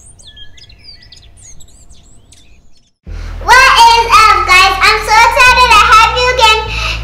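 Faint bird chirps, then from about three seconds in a young girl singing loudly in held, gliding notes over a low steady hum.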